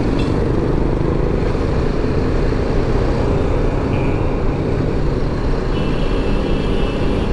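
Steady riding noise from a BMW G310 GS motorcycle on the move: its single-cylinder engine running under the rush of wind.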